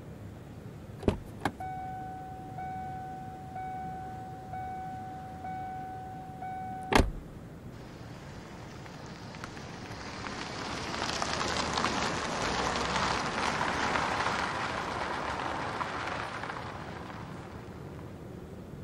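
Car door latch clicks open and a steady electronic warning chime sounds for about five seconds, dipping about once a second, until the door shuts with a heavy thump. Then the sedan pulls away, its engine and tyre noise swelling and easing off as it drives past.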